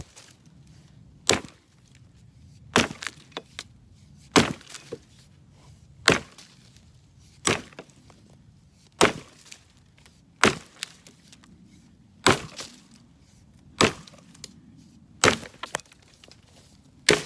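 A 1945 Spiller axe chopping into a large white pine branch: about eleven sharp, woody strikes at a steady pace of roughly one every second and a half, some followed by small clicks.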